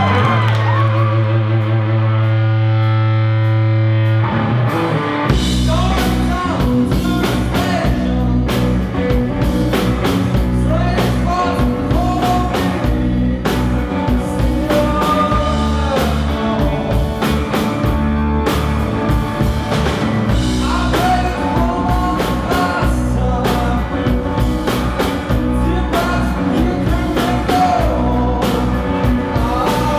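Live blues-rock band: a held chord rings for the first four seconds or so, then the drums and bass come in and a male voice sings over electric guitar and the full band.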